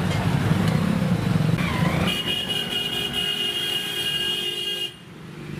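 Motorcycle engines running as bikes are ridden through deep mud, followed by a steady high-pitched tone of about three seconds that cuts off suddenly near the end.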